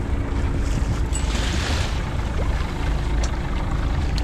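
Fishing boat's engine running steadily with a low rumble and a steady hum, with water splashing along the hull for a moment about a second in.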